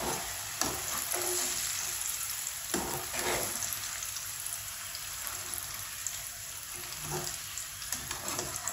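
Okra deep-frying in hot oil with a steady sizzle, the pieces crisp and ready to come out. A wire-mesh skimmer scrapes and knocks against the pan a few times as it lifts them from the oil.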